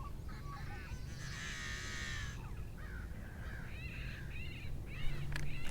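Birds calling: one long call lasting about a second, then a string of short calls that rise and fall in pitch.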